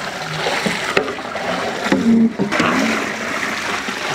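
Water poured from an aluminium bowl into a large aluminium cooking pot, splashing steadily into the liquid inside.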